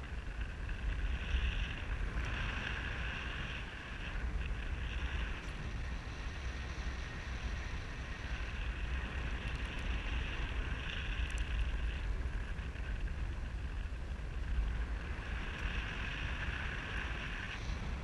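Wind buffeting a GoPro camera's microphone during a parasail flight, a steady low rumble, with a fainter higher whistle that comes and goes several times.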